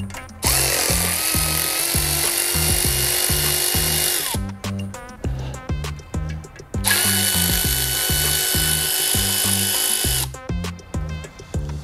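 Power ratchet running in two long spells of about three and a half seconds each, its motor whine rising as it spins up, backing out the camshaft plate bolts. Background music with a steady beat underneath.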